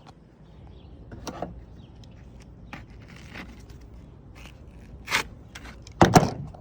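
Hand tools scraping and clicking on car roof trim as the pieces are worked loose. There is a sharp louder knock about five seconds in and a loud cluster of knocks near the end.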